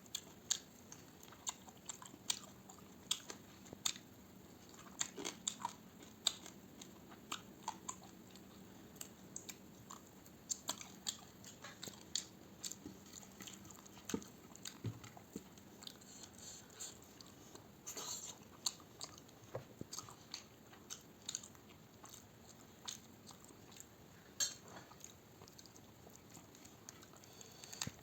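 A person eating close to the microphone: irregular chewing and biting, with crunchy crackles and wet mouth clicks several times a second.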